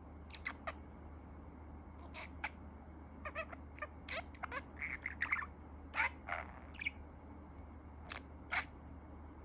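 Pet budgerigar chattering in a run of short chirps, clicks and squawky notes, the mumbled warble of a budgie practising words, over a steady low hum.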